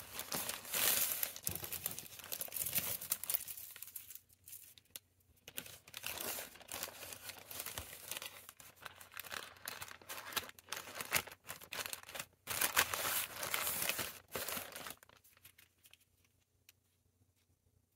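Plastic courier mailer bag crinkling and rustling in irregular bouts as it is folded over and pressed shut; the rustling stops about three-quarters of the way through.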